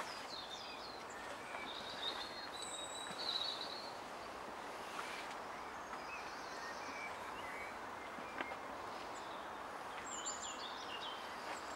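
Faint outdoor ambience: a steady background hiss with scattered short bird chirps and twitters, and a couple of faint ticks.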